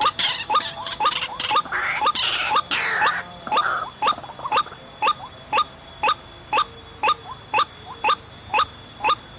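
White-breasted waterhen calls: short rising notes repeated steadily about twice a second, as in a trapping lure. Over the first three or four seconds a rougher, jumbled calling and noise overlaps them.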